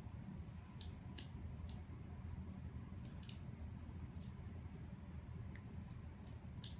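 Small, sharp clicks at irregular intervals as plastic BBs are pressed one at a time into the magazine of an electric H&K P30 airsoft pistol, about seven clicks in all.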